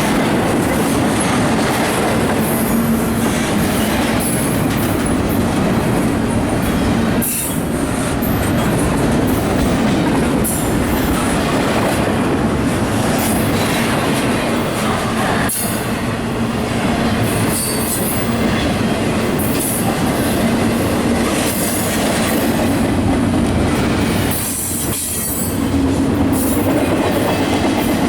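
A CSX freight train's cars rolling past close by: a steady rumble of wheels on rail with intermittent high-pitched wheel squeal, dipping briefly three times.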